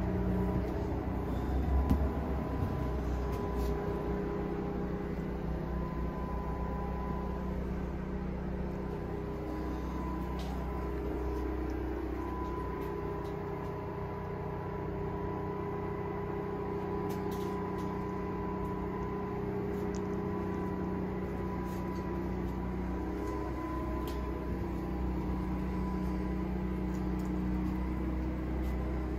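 Steady low machine hum with a faint tonal whine, unchanging throughout.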